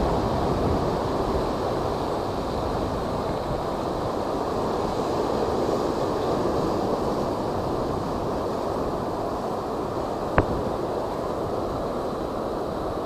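Typhoon wind and high surf: a steady rushing noise with wind buffeting the microphone, and one sharp knock near the end.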